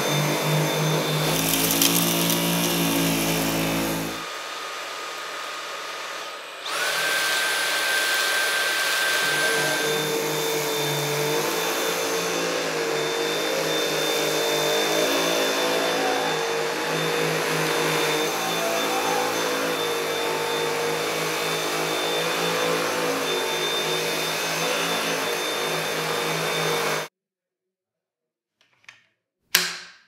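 Dyson V7 Advanced cordless stick vacuum running with its motorised cleaner head on carpet: a steady high whine. About four seconds in it drops quieter, then comes back louder with a rising whine about six and a half seconds in. Near the end it cuts off suddenly, followed by two short clicks.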